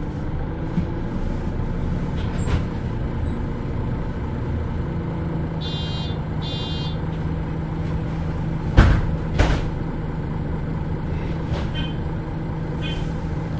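MAN NL323 Lions City Euro 6 city bus heard from inside, its diesel engine running with a steady drone. Two short high beeps come about six seconds in, and two loud knocks about nine seconds in.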